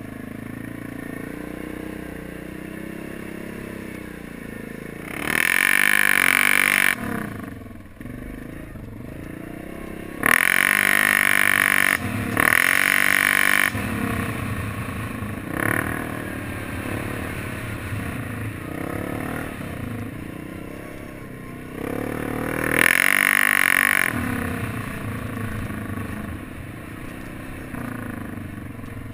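Yamaha Grizzly 700 ATV's single-cylinder engine being ridden hard, its pitch rising and falling with the throttle. There are three loud surges: about five seconds in, from about ten to fourteen seconds, and near twenty-three seconds.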